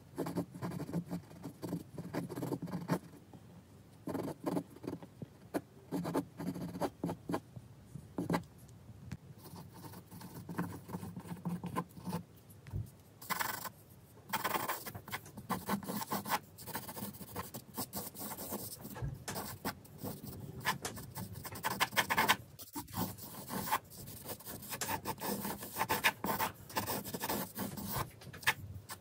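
Pencil sketching on paper: short scratchy strokes in quick bursts, sparser at first and busier in the second half.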